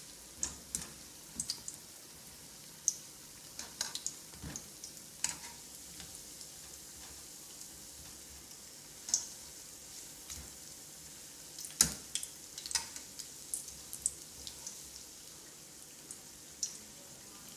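Pakoras (batter fritters) frying in shallow oil in a steel pan: a steady, fairly quiet sizzle with scattered pops and clicks, the sharpest about twelve seconds in, as a wire skimmer turns them.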